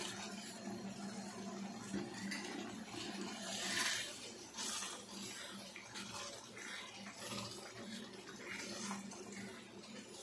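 Wooden spatula stirring watery mutton liver gravy in a cast-iron kadai, the liquid swishing around the meat pieces. The gravy has just been thinned with the liver's boiling water.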